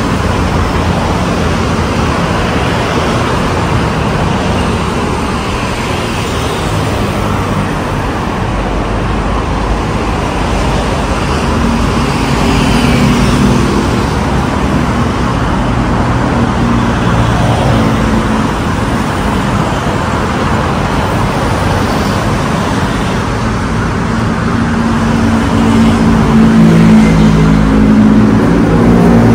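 Busy city road traffic, a steady wash of car and motorbike engines and tyres. A low engine hum comes up more strongly near the end.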